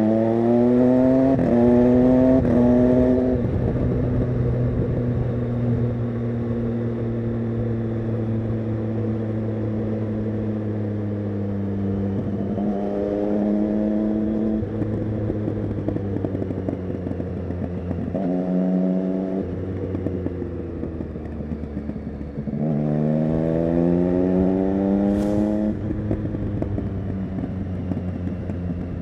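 Triumph Street Triple 675 inline-three motorcycle engine with an SC-Project Conic exhaust, pulling hard through several quick quickshifter upshifts, then running on a steady, slowly falling note on a trailing throttle, with a short blip of the throttle. Near the end it pulls up through the gears again.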